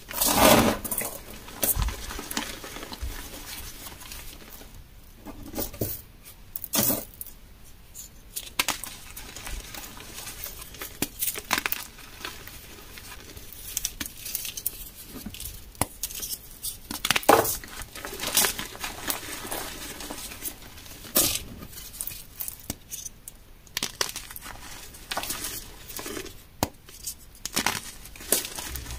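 Hands crushing and snapping moulded blocks of dyed gym chalk. The chalk crumbles and crunches with a dry, powdery rustle, broken by sharp cracks as pieces snap. The loudest cracks come just after the start and at about 17 seconds.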